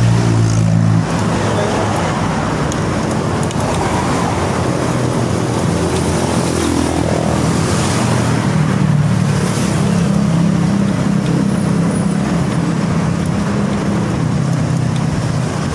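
A motor vehicle's engine running at a steady speed, with loud rushing wind noise over it; the low engine hum eases about a second in, then holds steady.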